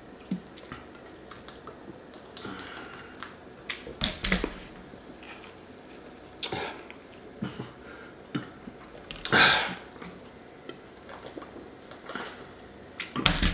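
A man drinking carbonated soda from a plastic 2-liter bottle: scattered short sips, swallows and breaths between quiet stretches. The loudest sound is a brief breathy noise about nine seconds in.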